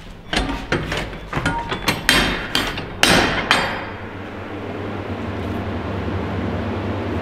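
A run of sharp metallic knocks and clanks, loudest about two and three seconds in, as a heavy walk-in cold room door is unlatched and swung open. A steady low hum runs underneath and is all that remains in the second half.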